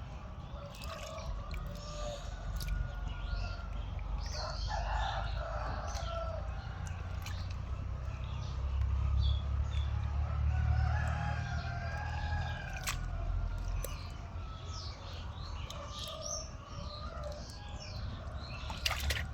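Birds calling outdoors: a long crowing call, typical of a rooster, about halfway through, over frequent short chirps of small birds, with a low rumble underneath.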